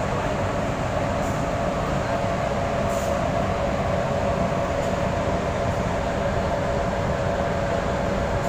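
Steady machinery noise: a continuous low rumble with a constant mid-pitched hum that does not change.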